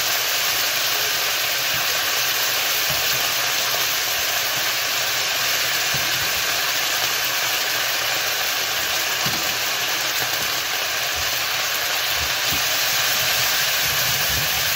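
Sauce sizzling in a hot pan of fried chicken and broccoli: a loud, steady hiss.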